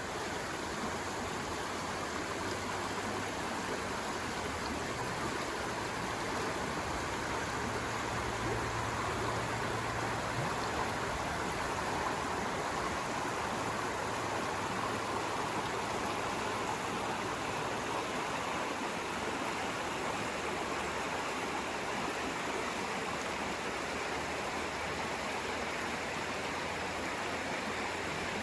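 Flowing stream, a steady rush of running water.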